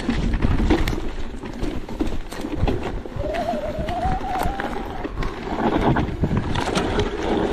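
Merida eONE-SIXTY electric mountain bike ridden fast over a rough trail: wind buffeting the microphone, with knocks and rattles from the bike and a wavering whine in the middle.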